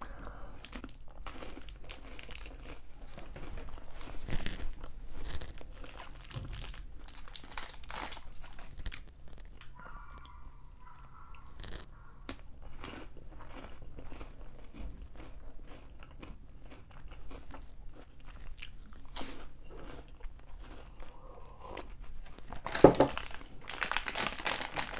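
A person chewing a crunchy snack close to the microphone, with irregular crunches. Near the end a snack wrapper crinkles loudly.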